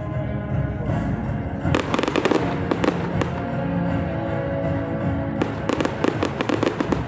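Fireworks bursting in rapid crackling clusters, first about two seconds in and again near the end, over music with steady held notes played for the display.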